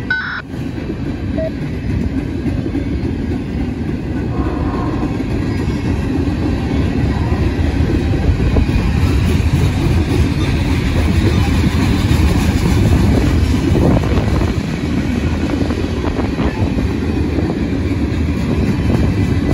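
Freight train's tank cars and covered hoppers rolling past close by: a steady rumble of steel wheels on the rails that builds a little louder over the first several seconds.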